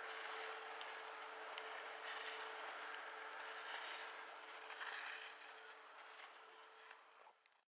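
Skis carving on snow in giant slalom turns: a hissing scrape of the edges that swells with each turn, loudest about 5 seconds in as the skier passes close, with a faint steady hum underneath. It cuts off abruptly near the end.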